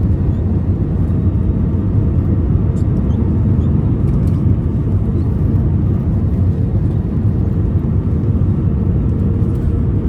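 Steady low rumble of an Airbus A320 heard from inside the passenger cabin: engine and airframe noise with a faint steady hum on top.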